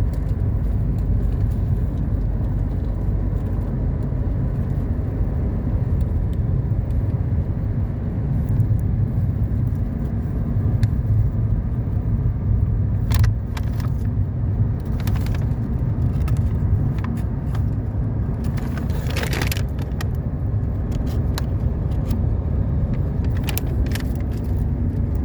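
A car driving: a steady low rumble of road and engine noise, with a few scattered clicks and rattles.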